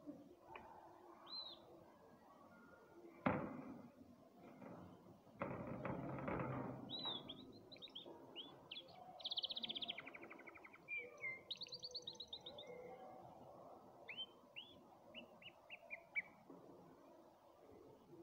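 Canary singing in short phrases: scattered chirps, then fast trills and runs of quick repeated rising notes. A sharp knock about three seconds in, and a brief burst of louder background noise a couple of seconds later.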